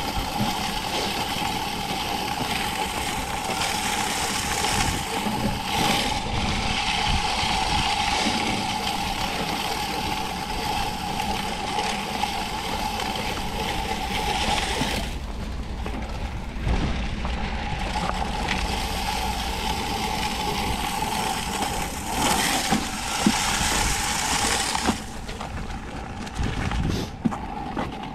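BOSS salt spreader running, a steady gear whine under the hiss of salt being flung across the pavement. It stops for a few seconds about halfway through and starts again. Wind rumbles on the microphone.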